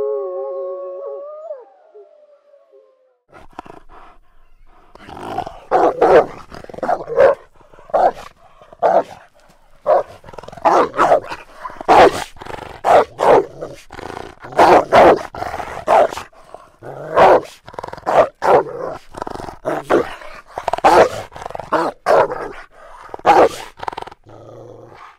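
Wolf's howl trailing off with a falling pitch, then, after a short pause, a long series of sharp wolf barks, singly and in quick runs of two or three.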